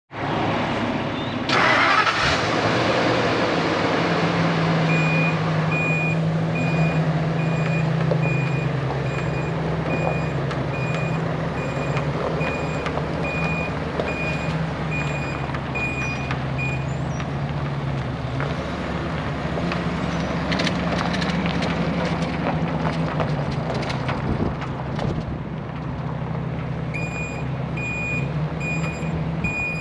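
Ford Super Duty bucket truck's engine running steadily as the truck is driven about, with a loud surge of noise about a second and a half in. Its backup alarm beeps at an even pace for much of the time, stops a little past halfway, and starts again near the end.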